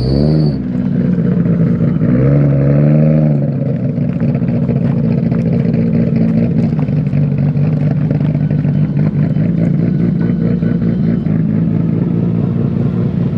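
Nissan Skyline R33 GT-R's RB26DETT twin-turbo straight-six driving: the engine revs up and eases off about two seconds in, then runs at a steady pitch.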